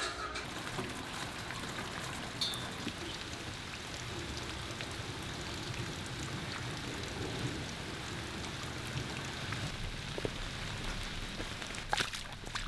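Steady rain falling and pattering on surfaces. Near the end come a couple of splashing footsteps through a puddle on a wet brick sidewalk.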